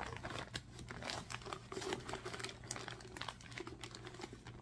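Plastic zip-top bag of flour crinkling and rustling in irregular crackles as it is handled and flour is scooped out of it.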